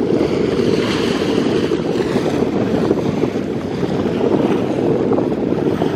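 Strong wind buffeting the microphone in a steady low rumble, over choppy sea water lapping.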